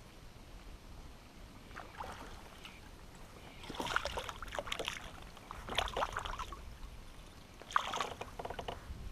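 Several short clusters of clatter and splashing from a bass being fought at the side of a fishing kayak and lifted aboard, each lasting under about a second and a half, the loudest around four and six seconds in.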